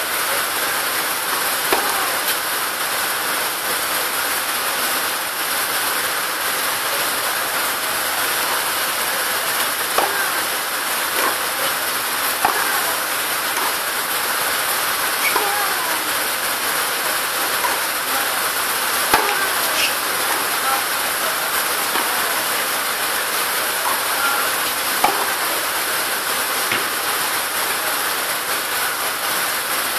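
Tennis balls struck by rackets in a practice hit: sharp, single thwacks now and then at irregular gaps, over a steady loud hiss.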